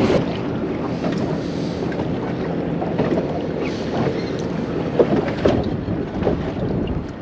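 Wind buffeting the microphone aboard a small boat on the water, with a couple of light knocks about five seconds in.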